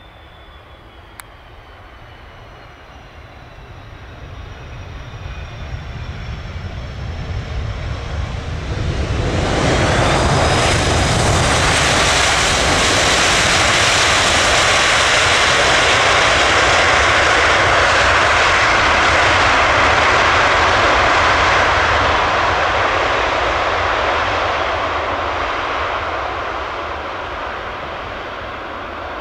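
Delta Air Lines Airbus A330-300 jet engines passing close on its arrival. The jet noise builds from a distant rumble to a loud, steady level about ten seconds in, with a brief falling whine, holds for about twelve seconds, then slowly fades.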